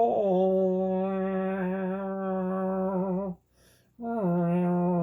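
A person's voice humming long held notes, each sliding down a step near its start. One note stops about three seconds in, and the next begins after a short break.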